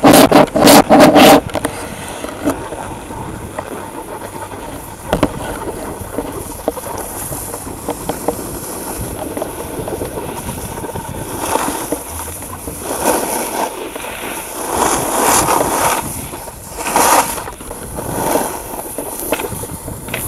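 Snowboards scraping and carving over groomed snow, mixed with rushing wind on the moving camera's microphone. Several very loud bursts in the first second and a half, and louder swells of scraping several times in the second half.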